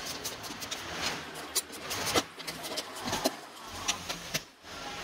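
Irregular clicks, taps and rustling of hands working among the wiring and parts behind a car's removed dashboard, with a few sharper knocks.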